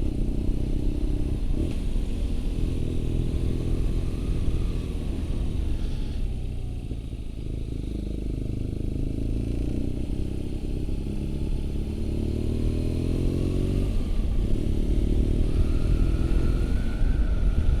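BMW R nineT's air/oil-cooled boxer twin engine running under way on the motorcycle. It eases off about six seconds in, then climbs steadily in revs and drops sharply near fourteen seconds, as at a gear change, before running on steadily.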